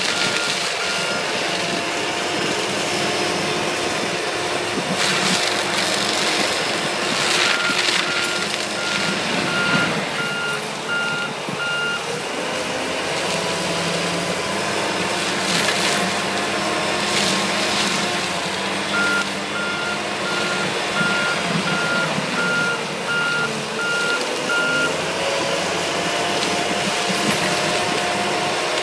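Tigercat forestry mulcher's diesel engine running hard while its front mulching head shreds cedar, with short cracking crunches now and then. The engine pitch sags and recovers twice. A backup alarm beeps in three spells as the machine reverses.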